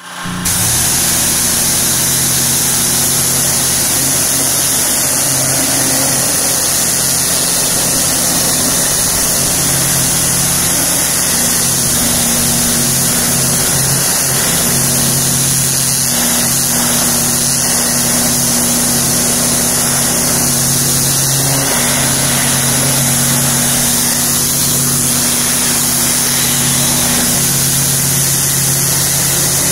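Pressure washer running steadily: the high-pressure water jet hisses against vinyl siding over the even drone of the machine's motor and pump.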